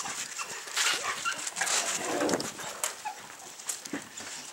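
Dog whimpering in short, high whines and yips, with rustling noises between them.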